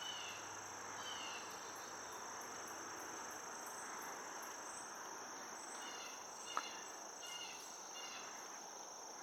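Steady, high-pitched insect chorus droning on without a break, with a few short chirps coming in groups now and then.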